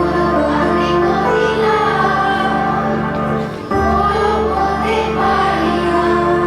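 A song in Odia: voices singing over instrumental backing with a steady low drone. The music dips briefly about three and a half seconds in, then picks up again.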